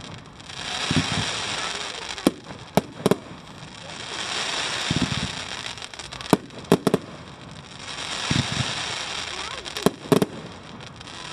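Fireworks going off: clusters of sharp bangs a few seconds apart, with swells of crackling hiss in between.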